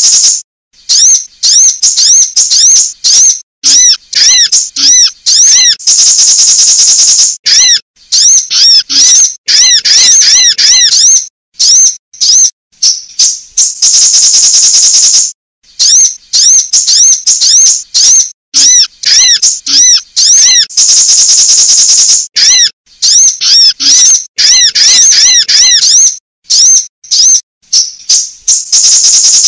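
Sunbirds calling: rapid, high-pitched chirps and twitters in quick strings, broken by a few long, buzzy trills. This is a female sunbird call used as a lure to get caged sunbirds singing.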